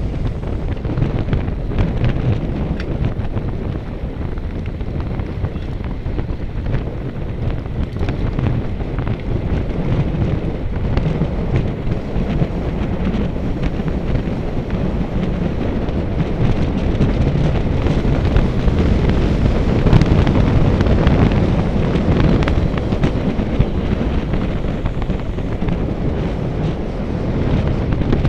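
Wind buffeting the microphone: a loud, continuous low rumble with irregular gusty crackles, swelling somewhat in the second half.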